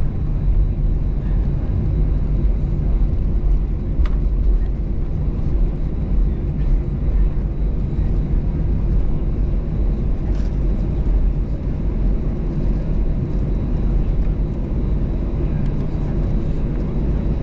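Steady low rumble inside the cabin of an Airbus A320-214 taxiing, its CFM56 engines at taxi power, with a faint click about four seconds in and another about ten seconds in.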